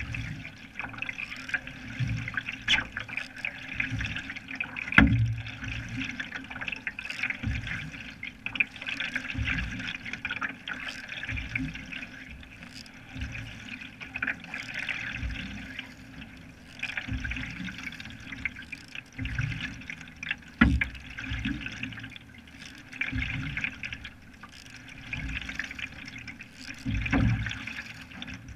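Canoe paddle strokes: a single-blade paddle dipping and pulling through lake water in repeated strokes, with splashing and water swishing past the hull. Two sharp knocks stand out, about five seconds in and again about twenty seconds in.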